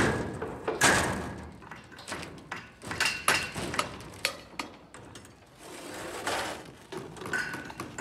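Plywood formwork sheets being set down and shifted on a deck: a loud thud at the start and another just under a second later, then scattered knocks and taps, and a longer scraping sound around six seconds in.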